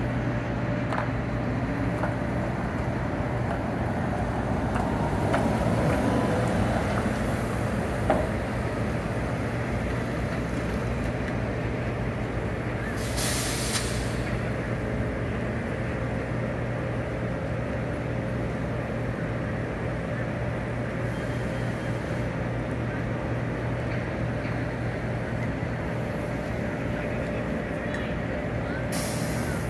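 New Flyer XT60 electric trolleybus in city street noise. Over a steady low hum its motor gives a rising whine as it pulls away about five seconds in, and there is a sharp knock a couple of seconds later. Short bursts of compressed-air hiss from the bus's air brakes come around thirteen seconds in and again near the end.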